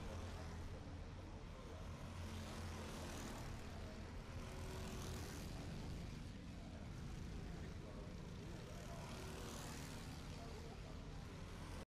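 Racing karts' engines running on the circuit as karts pass, a continuous engine drone with a few swells as karts go by.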